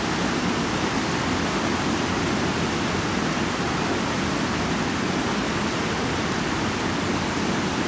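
Steady rushing of a fast, shallow river running over rocks and riffles.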